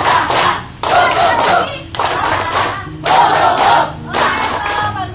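A group of people laughing and shouting together in loud bursts about a second long, one after another: deliberate group laughter in a laughter-therapy exercise.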